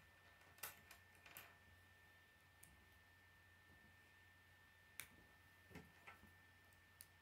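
Faint, scattered clicks of plastic K'nex rods and connectors being handled and pushed together, a few in the first second and a half and a few more near the end, over a faint steady whine.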